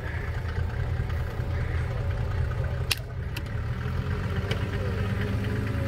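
Off-road 4x4's engine running steadily at low revs as the vehicle crawls cautiously through a difficult section. There is one sharp click or knock about three seconds in.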